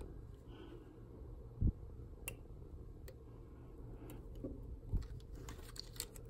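Quiet handling noises while hand-soldering a relay's circuit board: two soft low bumps, about a second and a half and five seconds in, and a scattering of light clicks, over a faint steady low hum.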